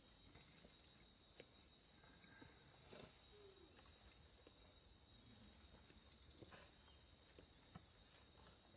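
Near silence: outdoor ambience with a steady high hiss and a few faint ticks and rustles.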